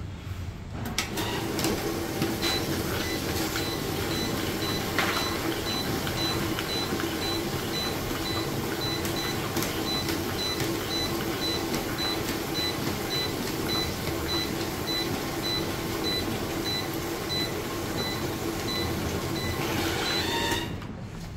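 Stacker conveyor with a thermal inkjet (TIJ) printer running, a steady mechanical hum with a thin high tone pulsing evenly about twice a second and an occasional click. It starts about a second in and stops shortly before the end.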